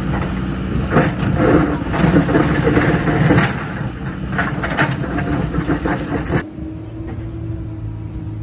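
Kobelco hydraulic excavator's diesel engine working under load as its bucket digs into soil and rock, with scraping and knocks of rock against the bucket. About six seconds in, the sound cuts abruptly to a steadier, quieter diesel drone of a dump truck's engine heard from its cab.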